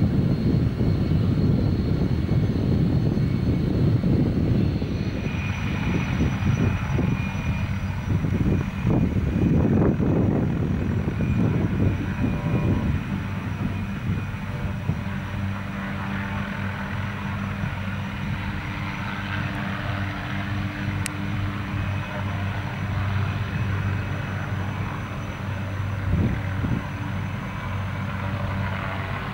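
MD500 and Mi-2 turbine helicopters running and lifting off: a steady rotor drone under a high, thin turbine whine. The first dozen seconds carry a heavy, fluctuating rumble, which then settles into a steadier hum.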